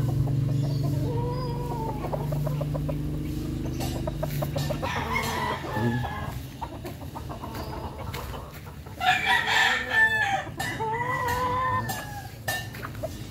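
Roosters crowing: several long calls that rise and fall in pitch, with clucking between them; the loudest, harsher call comes about nine seconds in. A low steady hum sits under the first few seconds.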